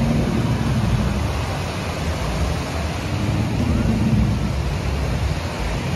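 A jet ski's engine running in the shallows, a faint hum under a steady rush of small waves breaking and wind on the microphone.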